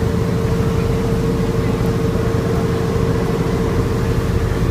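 Outrigger boat's engine running steadily while under way: a constant low drone with a steady hum.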